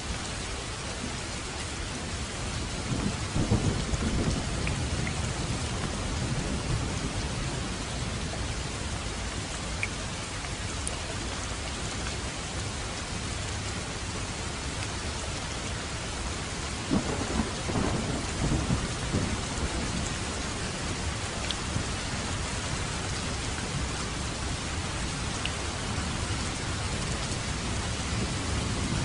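Steady heavy rain falling, with low rolls of thunder rumbling up twice, a few seconds in and again past the middle, and another starting to build at the very end.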